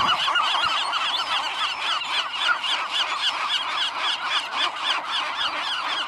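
A colony of western gulls calling: many overlapping cries and squawks, several a second, in a dense unbroken chorus.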